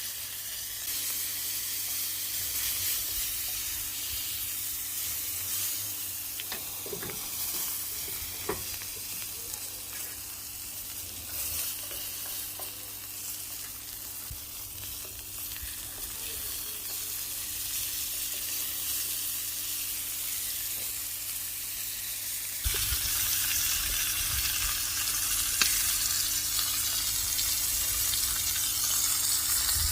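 Food sizzling and frying in a hot pan, a steady hiss that gets louder and brighter about 23 seconds in.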